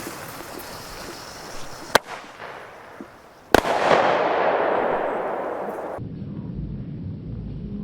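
Small fireworks going off. A crackle is followed by a sharp bang about two seconds in, then a louder bang about halfway through with a hiss that fades away.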